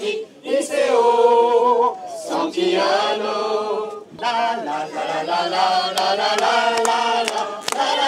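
A group of people singing a song together, in sung phrases with short breaks about two seconds and about four seconds in.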